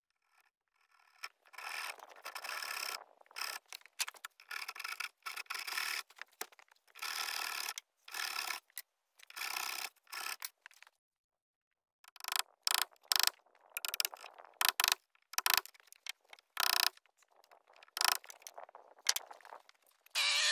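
A hand tool scraping along a debarked log post in repeated strokes. The strokes last about a second each in the first half and get shorter and choppier after about twelve seconds.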